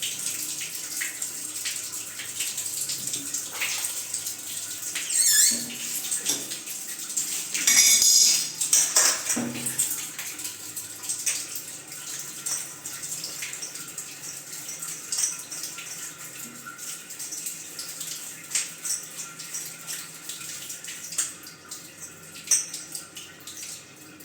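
Water running from an open wall supply point, a steady hiss, with clinks and knocks of metal fittings and tools and a few louder splashes about a third of the way in.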